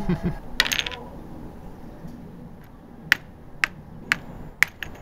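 A Trivial Pursuit pawn tapped along the board from space to space, about five sharp clicks roughly half a second apart in the second half, after a short rattle about half a second in.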